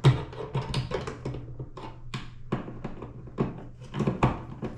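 Irregular sharp clicks and knocks, about fifteen of them, the loudest right at the start, from hands working a newly fitted rocker light switch and its hardware.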